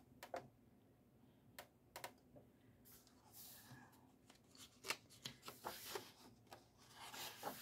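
Faint paper handling: the pages of a paperback colouring book rustling under the hands, with small taps and soft swishes, and a page being turned near the end.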